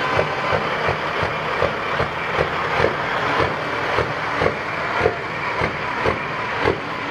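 Heavy diesel engine of a custom Kenworth semi truck running as the truck creeps forward, with a regular thump about twice a second.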